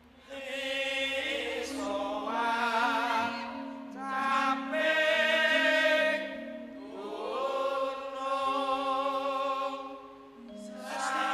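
A female voice singing three long, slow phrases with heavy vibrato and ornamented turns, in the style of a Javanese sinden, over soft, held gamelan notes that step from one pitch to another.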